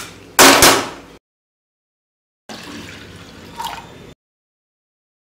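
Wet rinsed toor dal splashing from a steel mesh strainer into an aluminium pressure cooker, with a sharp knock of the strainer, during the first second. About two and a half seconds in, water pours into the cooker over the dal for about a second and a half, then cuts off.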